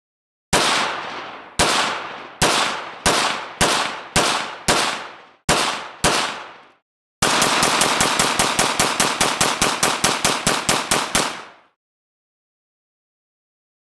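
Firearm gunshots: about nine single shots fired one after another roughly every half second to second, each ringing off. After a short pause comes a rapid string of about twenty shots lasting about four seconds.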